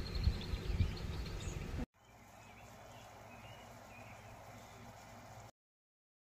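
Outdoor ambience with wind rumbling on the microphone and faint high chirps. About two seconds in it cuts to a quieter steady hiss with a few faint bird chirps, then drops to silence near the end.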